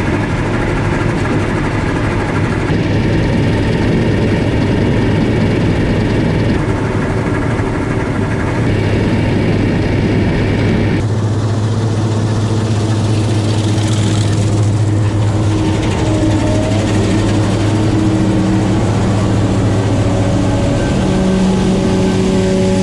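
Heavy farm machinery's diesel engine running steadily under load, a deep even hum; the sound shifts abruptly several times.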